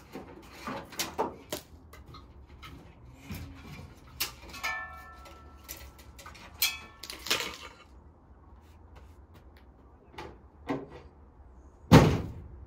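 Old wiring harness being pulled out of a van: scattered clicks, knocks and rustles as the wires and connectors come free, with a short squeak about five seconds in. A heavy thump near the end is the loudest sound.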